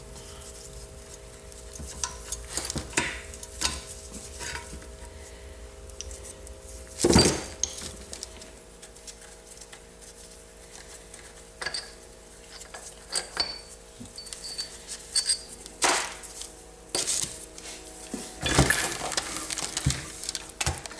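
Steel transmission gears and shafts of a Honda CB450 engine clinking and clanking against the aluminium crankcase as they are lifted out by hand. There is one loud knock about seven seconds in and a cluster of knocks near the end, over a faint steady hum.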